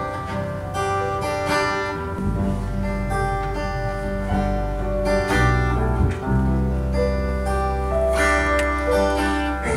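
Acoustic guitar strumming chords as an instrumental intro, joined about two seconds in by deep sustained bass notes.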